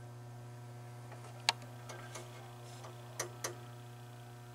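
Steady low electrical hum from the powered-up electromechanical pinball machine, with a few faint sharp clicks, the loudest about a second and a half in and two more close together near the end.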